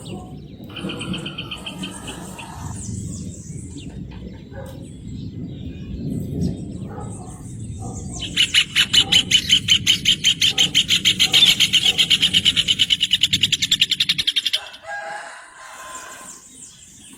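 Rufous hornero singing: a loud, rapid run of evenly spaced notes that starts about eight seconds in and lasts about six seconds, after a short high trill near the start.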